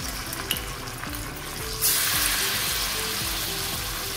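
Chickpea-batter pakoras sizzling in hot oil in an aluminium kadai, a steady frying hiss. About two seconds in the sizzle suddenly grows louder as another dollop of batter goes into the oil.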